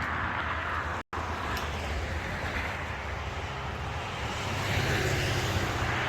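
Gas chainsaw engine running steadily, a little louder near the end, with a split-second total dropout about a second in.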